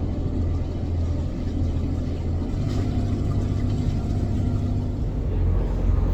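A boat's engine running steadily under way, heard as a low, even drone.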